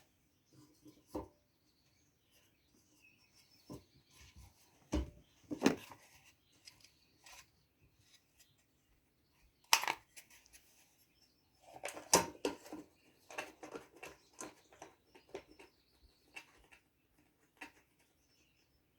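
Scattered clicks, taps and knocks of small engine parts being handled and fitted, the air filter and its housing on a Briggs & Stratton 5 hp engine being put back together. Two sharper knocks about ten and twelve seconds in, then a short run of small clatter.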